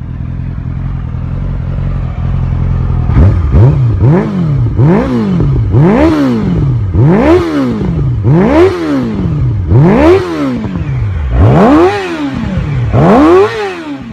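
Yamaha YZF-R6 inline-four sportbike engine through a Yoshimura aftermarket exhaust, idling for about three seconds and then revved in about eight quick blips, each rising sharply in pitch and falling back. The sound cuts off suddenly near the end.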